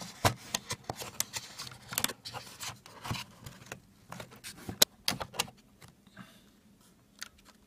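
Rustling and clicking of cardboard and foam packaging as a hair clipper and its coiled cord are pulled out of the box insert. A sharp click a little under five seconds in is the loudest, and the handling dies down to faint rustles after that.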